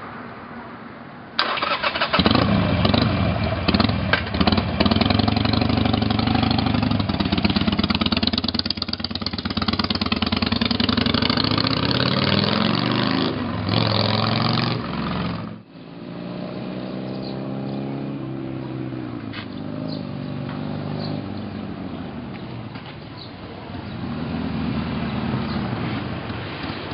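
Harley-Davidson Sportster 883R's V-twin engine starting about a second in and being revved repeatedly, its note rising and falling. It drops off sharply about halfway through, then runs on more quietly with a few more revs.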